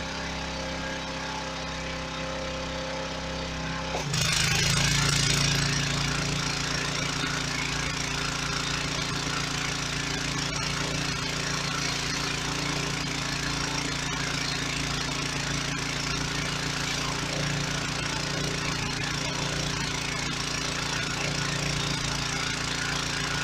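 Home-built pressure washer's small engine running steadily. About four seconds in, a loud hiss of high-pressure water spraying from a surface cleaner onto concrete starts and continues over the engine.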